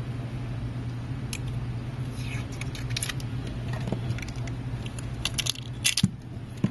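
Steady low hum with faint scattered clicks and short rustles of small handling at a repair bench, as Kapton tape is pressed down to hold a chip in place.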